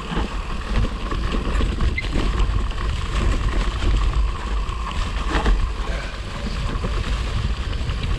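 Mountain bike riding over a trail covered in dry fallen leaves: the tyres crackle through the leaves while wind buffets the microphone with a steady low rumble.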